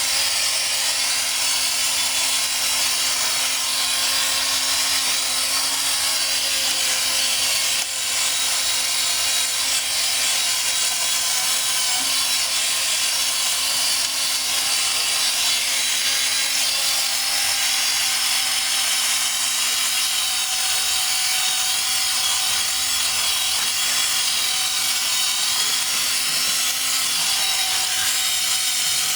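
Cordless drill running steadily, spinning a metal plumber's snake down a sewer pipe to clear a clog of kitchen grease. Its sound dips briefly about eight seconds in.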